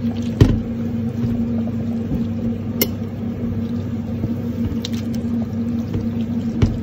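A fork stirring wet spinach in a ceramic bowl of foamy water with baking soda, squishing and splashing, with a few sharp clinks of the fork on the bowl, the loudest about half a second in. A steady hum runs underneath.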